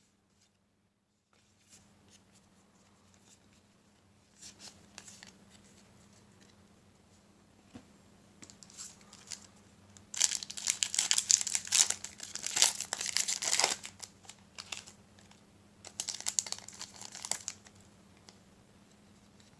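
Trading-card booster pack wrapper being torn open and crinkled, in irregular rustling bursts: a long loud spell of crinkling from about halfway through for some three seconds, then a shorter one near the end.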